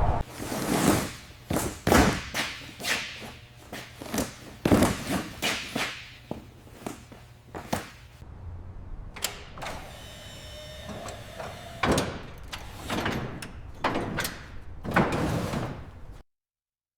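A run of irregular knocks, thuds and slams, some close together and some a second or more apart, that cuts off suddenly near the end.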